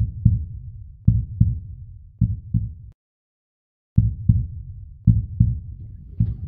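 Heartbeat sound effect: low lub-dub double thumps about once a second, three beats, a second's break, then three more.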